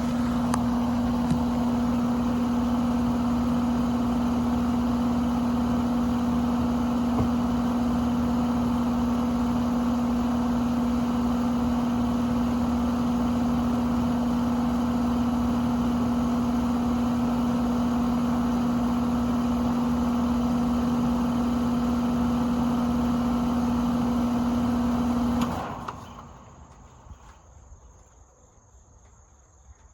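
2024 Carrier 4-ton central air conditioner's outdoor condenser unit running with a steady, loud hum, its fan motor buzzing, typical of these newer Carriers. About 25 seconds in it shuts down and the sound dies away within a second.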